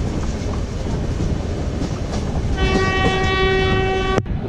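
Passenger train running along the track with a steady rumble. About two and a half seconds in, a train horn sounds one long, steady note that breaks off suddenly.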